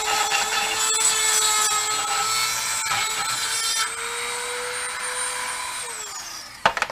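Dremel rotary tool grinding metal in the U-joint cap bore of a driveshaft yoke, easing a bore that is too tight for the cap: a steady high whine with gritty grinding. About four seconds in the grinding stops and the tool runs free. Near the end it is switched off and whines down in pitch, followed by a short knock.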